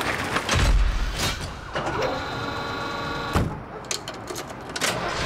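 A moving truck's roll-up rear door rattling down with a heavy rumble, followed by a steady mechanical whir, a sharp knock about three and a half seconds in, and a few clicks.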